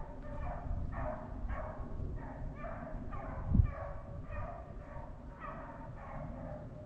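Rabbit hounds baying on a rabbit's trail, short barks about two a second in a steady run. A single low thump about halfway through.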